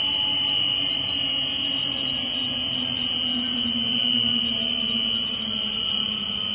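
Inverter-driven electric motor of a sigma kneader mixer's discharge screw winding down after being switched off: a low hum slowly falling in pitch, over a steady high-pitched whine.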